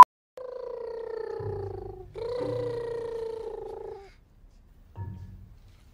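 A baby making two long "mmm" sounds while being spoon-fed, each sliding down in pitch, with a low murmur underneath and a short low sound near the end.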